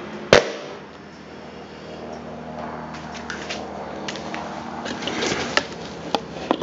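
Subwoofer fed 50 Hz mains from a 240 V wall socket: a sharp click as power goes on, then a steady buzzing hum with scattered crackles and clicks, and a few more sharp clicks near the end. The crackling fits the shorting, broken tinsel lead that keeps the voice coil from burning out.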